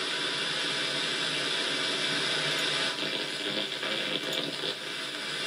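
Steady static hiss from an RTL-SDR dongle receiving in AM mode while it is tuned across the 27 MHz CB band, dipping briefly a few times.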